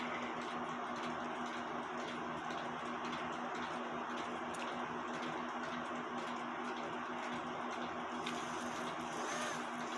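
Soft ticking and light clicking from a cuckoo clock movement over a steady low hum.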